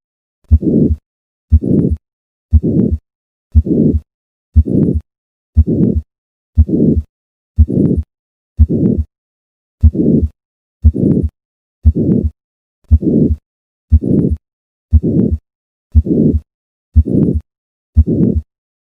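Heart sounds of hypertrophic cardiomyopathy at the fourth left intercostal space: each beat, about one a second, is a sharp first heart sound followed by a systolic murmur lasting about half a second, with silence between beats.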